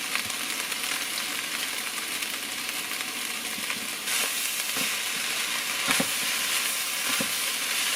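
Onions and bell peppers sizzling as they fry in a pan, just after honey is added, while they are stirred. The sizzle grows louder about four seconds in, and the stirring utensil knocks lightly against the pan a few times.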